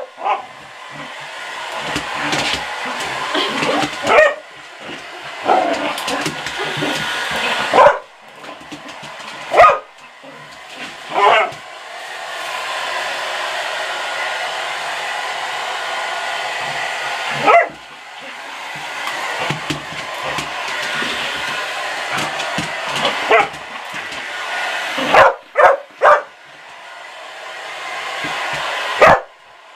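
Hair dryer blowing, its noise swelling and fading, while a dog barks and yips at it about ten times, three in quick succession a little before the end.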